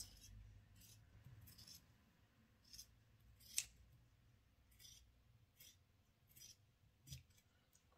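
Scissors cutting through fabric: a series of faint snips, about one a second, the sharpest about three and a half seconds in.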